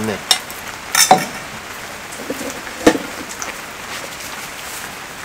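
Steady rain falling, with a few sharp clicks and knocks of utensils against bowls. The loudest comes about a second in and another sharp one near three seconds.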